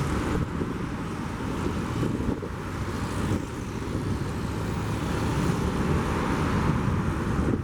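Steady wind noise on the microphone over a low, even background rumble.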